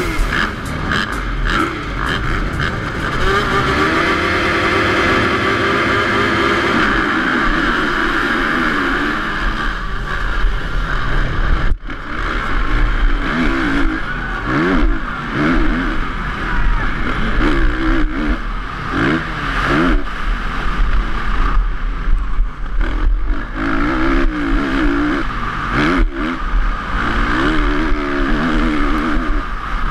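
Motocross bike engine racing hard, heard close up from a camera on the bike. Its pitch climbs through the gears after the start, then swings up and down again and again as the throttle opens and closes. Other bikes' engines run alongside in the first seconds.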